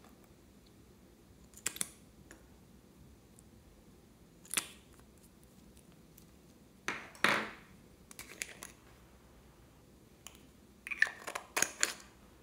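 Scattered small clicks and taps from plastic makeup tubes and containers being handled over a tray of slime. There is a longer, louder rustling sound about seven seconds in, and a quick run of clicks near the end.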